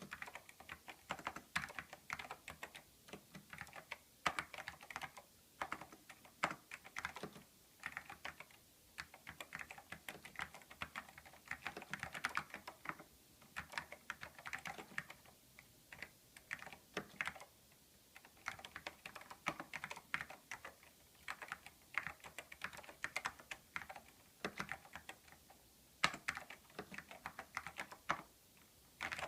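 Typing on a Silicon Graphics keyboard with salmon Alps switches and beige keycaps: a fast, continuous run of key clicks, broken by a few brief pauses.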